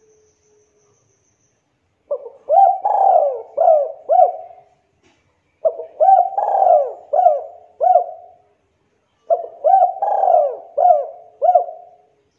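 Spotted dove (tekukur) cooing: three phrases of about five coos each, a few seconds apart.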